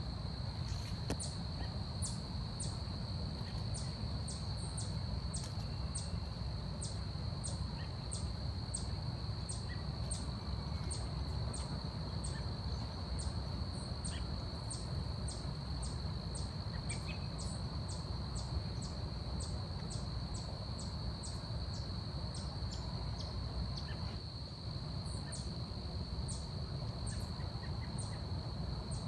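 Forest ambience: a steady high insect drone with a repeated series of short, high chirps about two a second, over a low rumble. The chirps stop near the end, leaving only a few.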